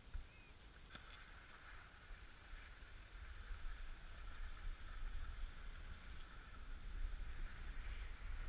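Skis sliding on groomed snow with a steady hiss, while wind rumbles on the microphone, growing louder from about three seconds in. A brief knock right at the start.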